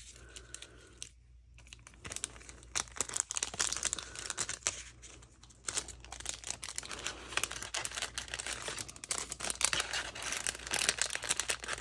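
Clear cellophane wrapping crinkling and paper craft pieces rustling as they are handled and unwrapped: quiet at first, then dense, crackly crinkling from about two seconds in.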